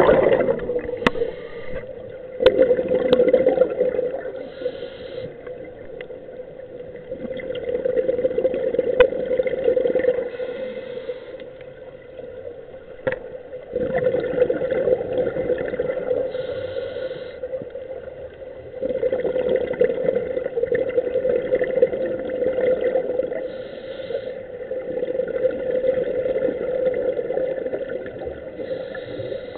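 Underwater scuba breathing: bubbles from a diver's regulator exhaust rush and gurgle in surges every four to six seconds, each lasting a few seconds, over a steady hum, heard through an underwater camera housing, with a few sharp clicks.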